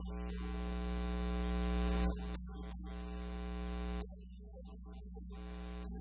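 Loud, steady electrical mains hum on the recording, with a held, pitched tone above it that breaks off about two seconds in and again about four seconds in.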